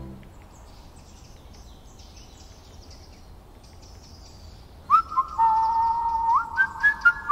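After about five seconds of quiet, a tune is whistled: clear held notes joined by short upward slides, the whistling of the tree character.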